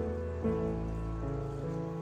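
Instrumental background music: soft held notes changing every half second or so.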